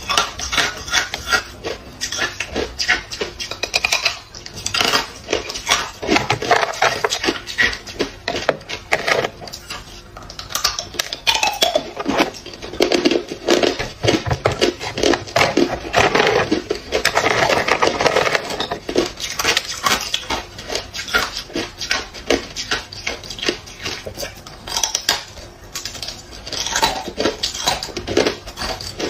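Hard ice being bitten and crunched, close up: a dense, continuous run of sharp cracks and crunches, with chunks of ice clinking together as they are handled.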